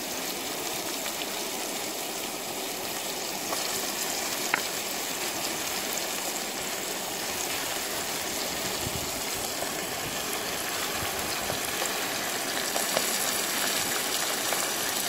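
Steady rush of a flowing river, with one brief click about four and a half seconds in.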